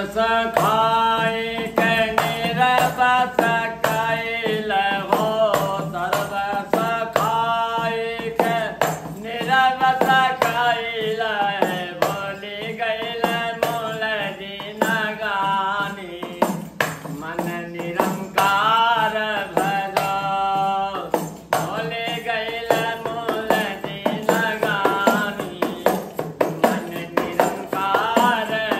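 A man singing a devotional bhajan solo, keeping time with regular jingling clicks from a small hand-held percussion instrument.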